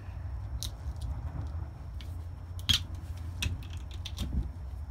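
Scattered small clicks and taps of a hand tool and gloved fingers working the old rubber dust covers off a brake caliper, the sharpest click about two-thirds of the way through.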